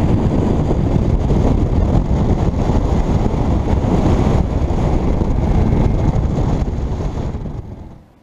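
Bass boat running at speed under outboard power, engine and hull noise buried under heavy wind buffeting on the microphone. The rush fades out near the end.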